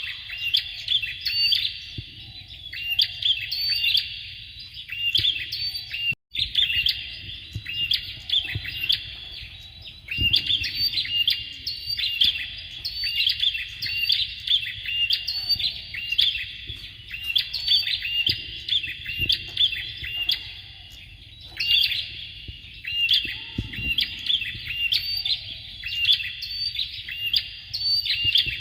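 Bar-winged prinias calling in long, rapid bouts of sharp repeated chirping notes, with short pauses between bouts. The sound drops out completely for a moment about six seconds in, and a faint low hum runs underneath.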